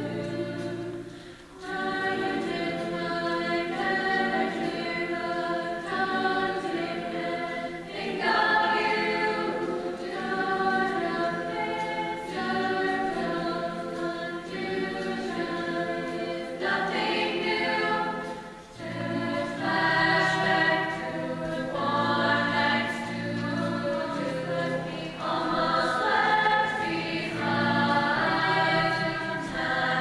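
Mixed-voice high school show choir singing sustained chords in several parts, with brief breaks about a second and a half in and again around eighteen seconds in.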